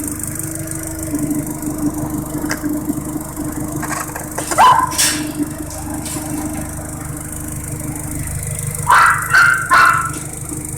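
Audi TT's 20-valve four-cylinder engine idling steadily with a strange noise from the intake that appeared after a new camshaft and Audi R8 TFSI coil packs were fitted; the car runs normally and shows no fault codes. A dog barks about halfway through, then three quick barks near the end.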